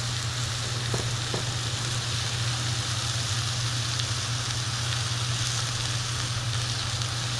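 Pieces of chicken breast sizzling steadily in a hot frying pan, left to sear and brown. A steady low hum runs underneath, with a couple of faint taps about a second in.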